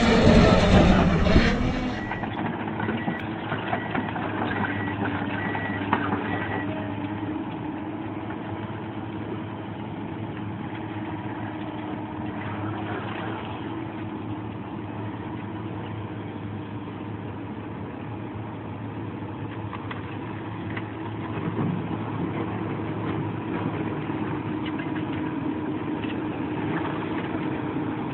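Hydraulic excavator's diesel engine running steadily at idle. It opens with about two seconds of louder, rougher noise before the steady engine sound takes over.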